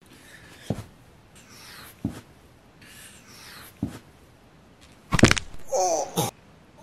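Bare feet thud onto a carpeted floor three times during handstand kick-ups, with breathing between them. About five seconds in comes a louder crash as the body falls out of the handstand, followed by a short pained cry.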